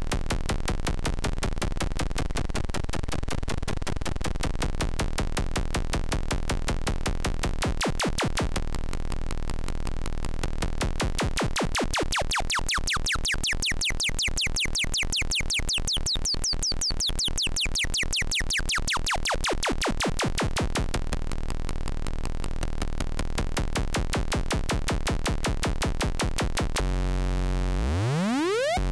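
DIY Eurorack modular synthesizer built from Erica Synths open-source kits, playing a fast stream of repeated electronic pulses shaped by its envelope generator as the knobs are turned. The tone brightens and then darkens again around the middle. Near the end it changes to repeated rising pitch sweeps, about one every second and a half.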